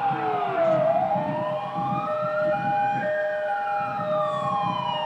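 Emergency vehicle sirens wailing as rescue units respond. One siren's pitch dips about a second in, rises slowly for about two seconds, then falls again. A second siren's steady on-off tone runs alongside, over a low rumble.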